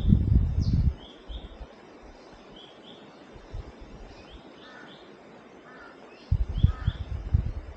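Forest birds calling: short high chirps, often in quick pairs, repeating about once a second, with a few lower calls in the middle. Low rumbling bumps from the microphone in the first second and again from about six seconds in.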